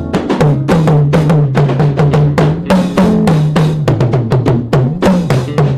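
Live gospel band music without singing: drums and percussion keeping a quick, steady beat of about four hits a second over a held bass line that moves in steps.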